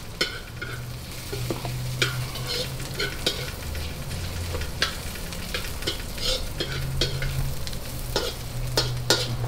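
Onion and garlic sizzling in a steel wok while a long metal ladle stirs them, scraping and clicking against the pan at irregular moments. A steady low hum runs beneath.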